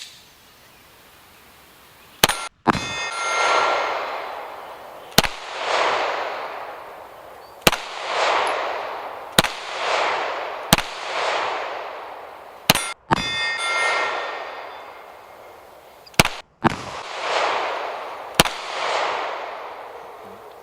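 Beretta APX A1 9mm pistol fired eight times in slow, uneven succession. Each shot is followed by a ringing clang as the steel target is hit.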